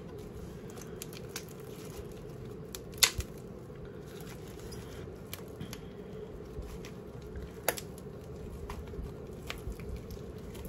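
Slime being kneaded and stretched by hand as coconut oil is worked in: a string of small sticky clicks and pops, with two sharper snaps about three and eight seconds in. A steady low hum runs underneath.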